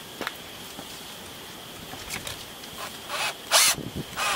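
Light handling clicks and rustling as a cordless drill is picked up and positioned. About three seconds in, short loud bursts as the drill bit starts boring a hole into the door frame.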